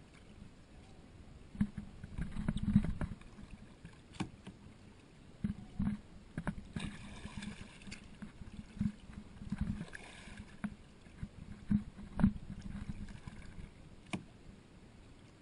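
A plastic kayak being paddled: paddle strokes splashing in the water, with irregular knocks and thumps carried through the hull, and a couple of short spells of splashing hiss.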